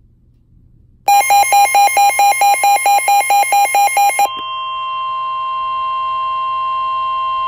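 Midland weather radio sounding its alert for a severe thunderstorm warning. About a second in, a loud pulsing alarm starts, about four to five beeps a second. A few seconds later it changes to a long steady single-pitched tone, the NOAA warning alarm tone that comes before the broadcast message.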